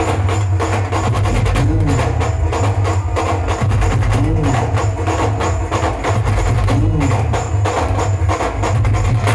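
Brass band's drums playing a fast, dense dhol-tasha rhythm over heavy bass, loud and unbroken, with a short rising-and-falling melodic figure coming back about every two and a half seconds.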